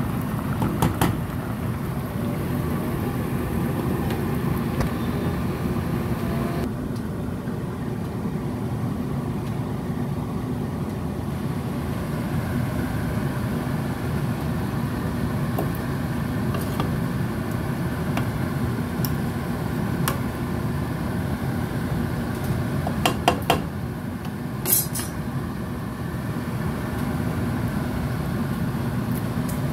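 A steady low hum runs throughout, with a few brief clinks and knocks of a silicone spoon against a metal pot as penne is stirred, a small cluster of them about 23 to 25 seconds in.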